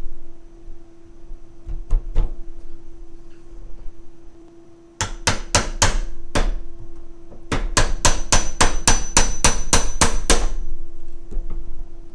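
Sharp metal-on-metal tapping on a car door lock cylinder's retaining clip, knocking it sideways to free it: a couple of taps, then about six in quick succession about five seconds in, a short pause, and a run of about a dozen at roughly four a second, with a faint ring.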